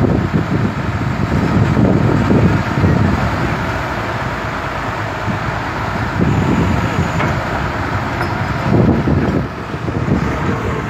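Diesel engines of the excavators working the recovery, running with a low rumble that swells and eases as they work.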